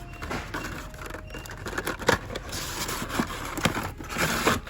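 Hot Wheels cars in plastic blister packs being flipped through by hand in a cardboard shipper box: an irregular run of plastic clicks and clacks, with rustling of card and cardboard.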